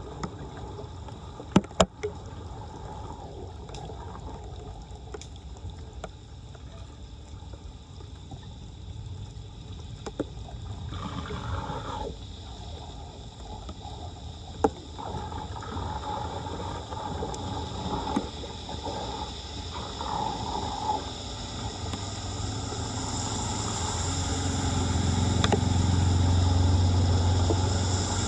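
Floodwater gurgling and trickling, with a few sharp knocks. Near the end a vehicle engine's low hum comes in and grows louder.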